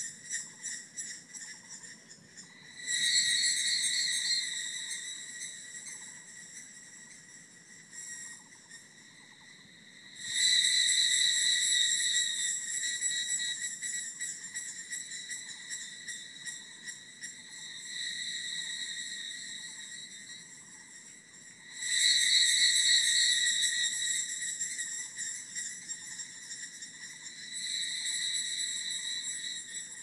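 Cicadas buzzing in the trees: a continuous high-pitched drone. It swells up suddenly about three seconds in, again around ten seconds, around twenty-two seconds and near the end, and fades slowly after each swell.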